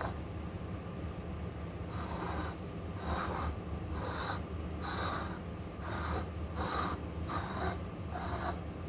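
A person's breathing close to the microphone: a run of short breathy puffs, about one a second, starting about two seconds in, over a steady low hum.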